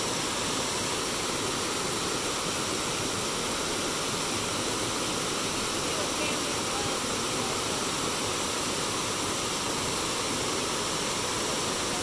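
River water running steadily, a continuous even wash of water noise.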